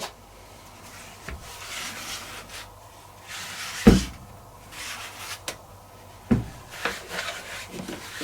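Handling noises at a tumble dryer: a few dull knocks, the loudest about four seconds in, among soft rubbing and rustling.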